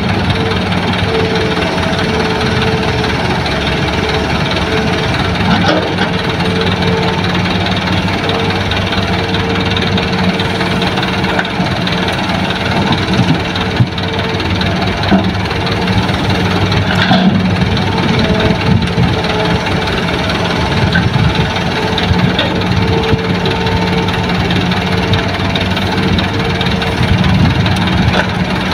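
Diesel engines of Hitachi hydraulic excavators and an idling dump truck running together in a steady, heavy drone, with a few faint knocks.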